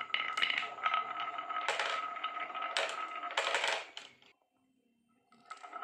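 Glass marbles rolling and clattering down a groove carved in a wooden plank, with a rapid run of clicks. The clatter dies away about four seconds in, and after a short silence it starts again near the end.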